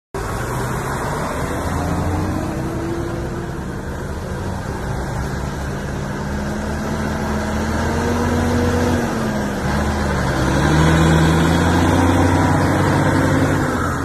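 Motor vehicle engines running close by: a steady low engine hum, with another engine's pitch dipping and climbing again about two-thirds through as it grows louder.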